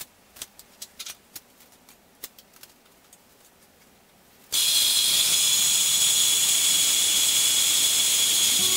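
Light scattered clicks and taps of steel parts being handled and fitted, then about halfway through a loud, steady, high hiss starts suddenly and keeps going.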